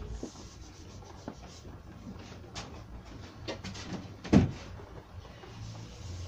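Knocks and light clatter of sprayed MDF cabinet panels being handled on a workbench, with one louder thump a little over four seconds in.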